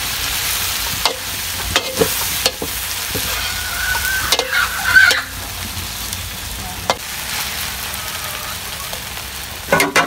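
Fresh miki noodles sizzling as they are stir-fried in a large metal wok, a metal spatula scraping and clanking against the pan several times. Includes a short squealing scrape about halfway through and a quick run of clanks near the end.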